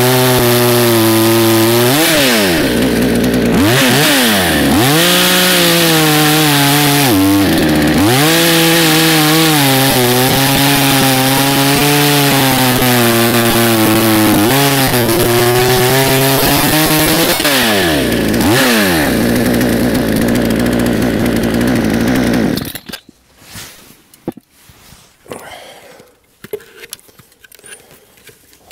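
Fuxtec FX-KS262 62 cc two-stroke chainsaw, its carburettor tuned to about 10,700 rpm top speed, running hard while cutting through a spruce log. The engine speed dips and recovers several times under load, then runs at a steadier lower speed. It is switched off about 23 seconds in, leaving only faint knocks and handling noises.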